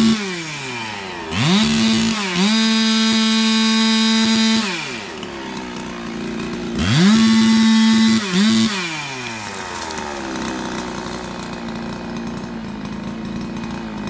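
A ported big-bore Husqvarna 372 XP chainsaw revving to full throttle twice for a few seconds each, with a brief dip in each burst. Between and after the bursts it falls back to idle, and it idles steadily through the last few seconds.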